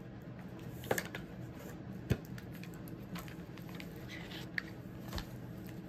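Cards and packaging being handled: a few light clicks and taps, the sharpest about two seconds in, and a brief rustle near the end.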